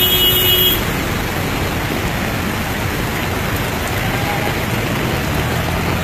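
Road traffic on a rain-soaked road: a small truck and a pickup pass close by, engines running and tyres hissing on wet tarmac, over a steady wash of rain. A brief high tone sounds right at the start.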